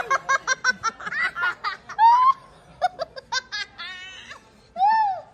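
Hearty laughter in quick, rhythmic bursts, with a high rising-and-falling squeal about two seconds in and another near the end.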